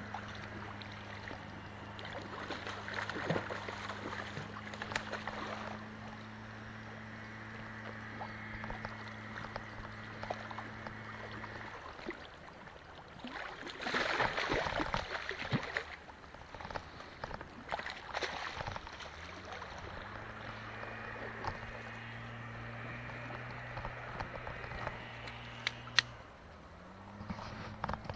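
River water running through a shallow pool, with a hooked brown trout thrashing and splashing at the surface for a couple of seconds about halfway through. A steady low hum drops out while the fish splashes.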